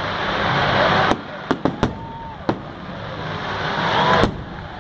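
Aerial fireworks display: aerial shells bursting with a quick cluster of about five sharp bangs in the first half, over a steady rushing noise that swells and drops off twice.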